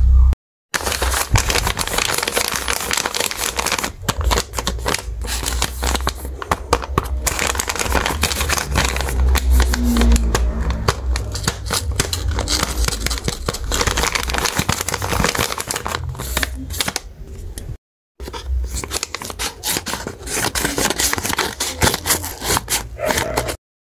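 Paper crinkling and rustling in close-up as a hand-made paper blind bag is handled, rubbed and opened, a dense run of rapid crackles, cut off by a brief silence about 18 seconds in.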